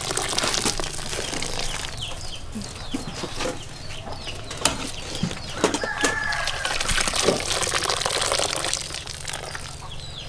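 Chickens clucking and calling, over a steady low hum. Light clicks and rustling come from noodles being handled in a metal basin.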